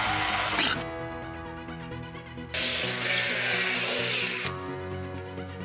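Drilling over electronic background music: a drill bit boring through a thin metal can lid stops under a second in. A cordless drill then bores into a pine board for about two seconds.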